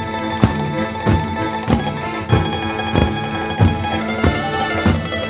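Live Salento folk band playing an instrumental stretch of tarantella. Tambourines strike a steady beat about every 0.6 seconds under held melody notes.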